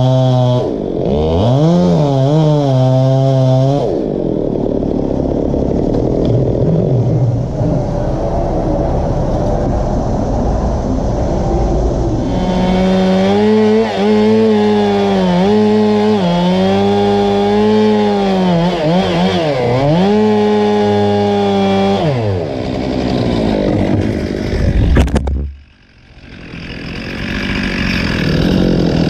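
Chainsaw running and cutting, its engine pitch rising and falling again and again as the throttle and load change. Near the end there is a sudden sharp sound and the level drops away briefly, before an engine runs steadily again.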